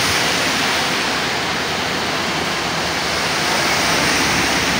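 Heavy tropical rain pouring down, a steady, even rush with no letup.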